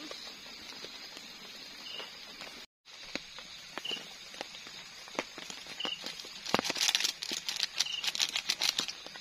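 Cooking noises at a small gas-canister camping stove: scattered clicks and knocks in the pot, then from about six and a half seconds in a dense run of crackling and rustling as something is poured from a packet into the pot. Under it the night forest keeps up a steady high hum of insects, and a short high chirp repeats about every two seconds.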